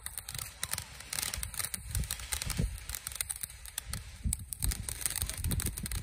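Ground fountain firework spraying sparks: a steady hiss with many quick, sharp crackles.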